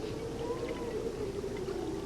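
Harp seals calling: faint, thin, rise-and-fall whistle-like calls, one about half a second in, over a steady low drone.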